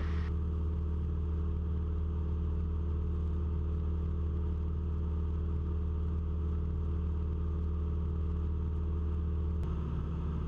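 Cessna 172's piston engine and propeller droning steadily in flight. Near the end there is a faint click and the drone's tone shifts slightly.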